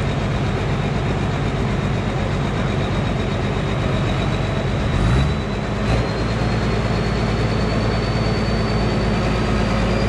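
Diesel engine of a tracked rice combine harvester running under load as it crawls through mud, with a steady high whine over it. About five seconds in the engine speed changes, its pitch gliding up and settling at a new level.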